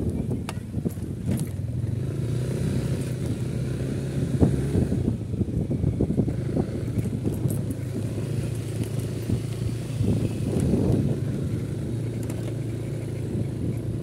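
Motorcycle engine running steadily while riding along, with wind buffeting the microphone.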